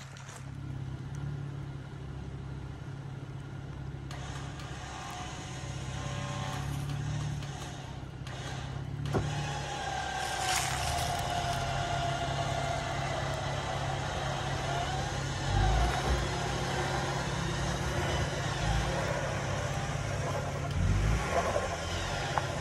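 Electric winch whining as it pulls a Ford Bronco Sport straight up out of a rocky rut, over the steady hum of an idling engine. Low thumps come from the vehicle a few times in the second half as it climbs over the ledge.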